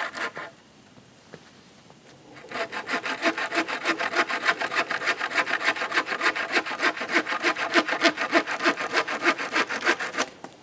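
Bow saw cutting through a birch log with quick, even back-and-forth strokes. A few strokes stop about half a second in, and after a pause of about two seconds the sawing resumes steadily until just before the end.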